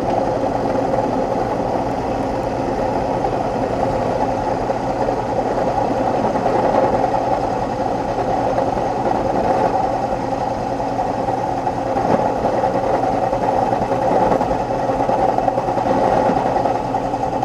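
Drill press running steadily while its carbide drill bit cuts into a high-speed steel (HSS) drill bit, an even machine hum.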